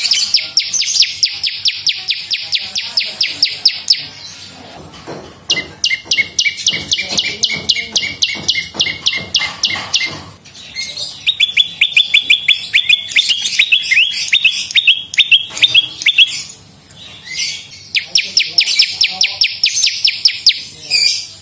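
A prenjak lumut (a prinia) singing in four trills of fast, evenly repeated sharp chirps, each lasting a few seconds with short gaps between, the third trill lower-pitched than the others.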